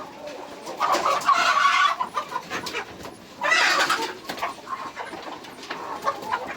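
A flock of chickens clucking and squawking, with two loud, drawn-out squawks about a second and three and a half seconds in.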